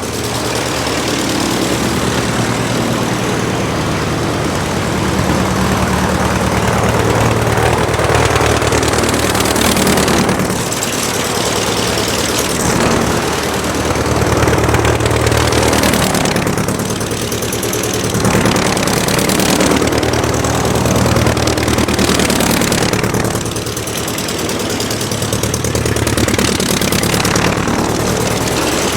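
Aircraft engine running steadily with a constant low hum. Its sound swells and eases a little every several seconds.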